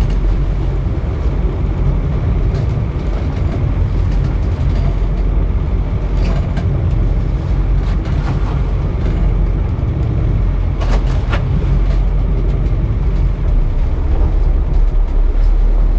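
Boat engine running steadily at low speed, a low droning hum under the wash of water at the stern. A couple of brief clicks about 11 seconds in.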